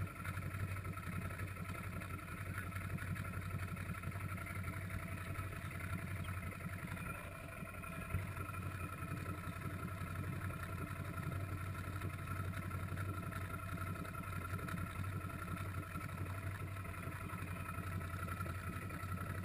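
ATV engine idling steadily, a constant low hum with a few steady higher tones.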